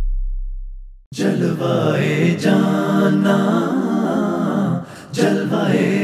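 A deep boom from the intro music dies away, and about a second in an unaccompanied devotional song (naat) begins, a cappella, with a brief break near five seconds.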